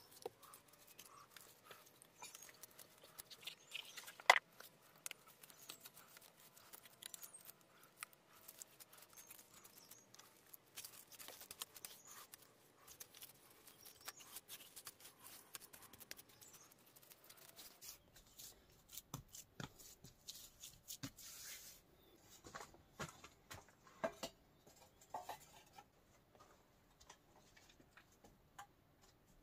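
Faint scattered clicks, scrapes and rustles of small objects being handled, with one sharper click about four seconds in and a few louder knocks in the second half.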